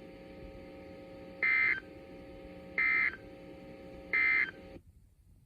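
Emergency Alert System end-of-message signal: three short bursts of shrill digital data tones about a second and a half apart, marking the end of the weather alert. A faint steady hum from the receiver runs underneath and cuts off near the end.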